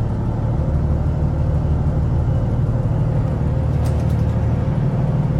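Twin mechanical marine diesel engines running at a slightly raised idle while still cold and warming up after a first start following months laid up: a steady low rumble.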